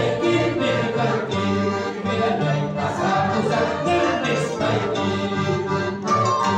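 Accordion, harp and wooden end-blown flute playing a carnival tune together. The accordion holds chords over the harp's plucked bass notes, which keep a steady rhythm.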